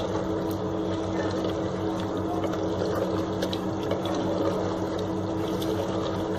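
Chicken frying in oil with ginger-garlic paste in a clay handi, sizzling and crackling as a spatula stirs and scrapes it around the pot. A steady low hum runs underneath.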